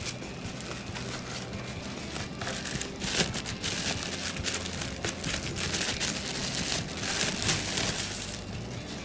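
Clear plastic bag crinkling and rustling as it is pulled off a speaker. It gets louder after about three seconds and stops shortly before the end.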